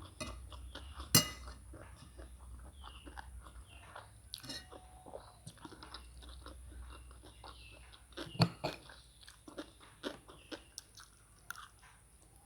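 Chewing and crunching food with the mouth: a run of small wet crunches and clicks, with two sharper, louder crunches, one about a second in and one about eight seconds in.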